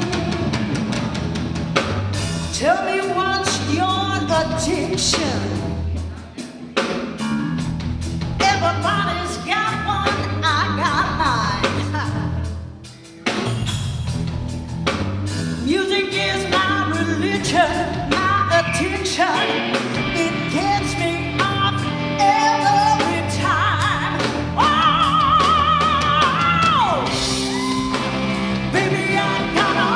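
Live blues-rock band (electric guitar, bass and drum kit) playing with a woman singing. The sound drops off sharply twice, briefly, in the first half, and near the end she holds a long, wavering high note that slides down as it ends.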